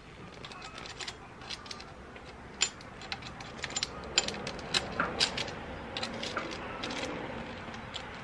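Light metallic clicks and taps, scattered irregularly and busier in the second half, as a pit bike's cam sprocket and timing chain are turned and seated by hand while the valve timing is set.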